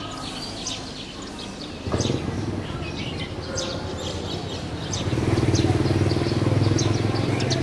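Small birds chirping throughout. A vehicle engine comes in suddenly about two seconds in and grows louder from about five seconds in.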